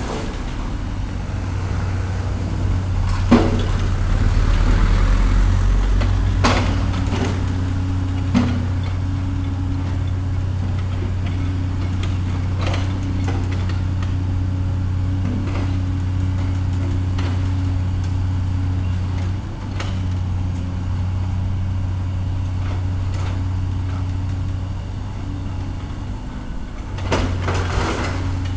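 Diesel engine of a demolition heavy machine running steadily, with a few sharp knocks and clanks scattered through, a cluster of them near the end.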